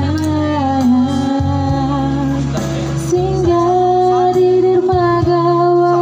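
A woman singing long held notes into a microphone over a karaoke backing track. Her melody steps up to a higher sustained note about halfway through.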